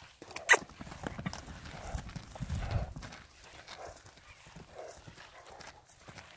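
Horse cantering loose on grass turf: soft irregular hoofbeats, with one sharp crack about half a second in and heavier low thudding from about two to three seconds in.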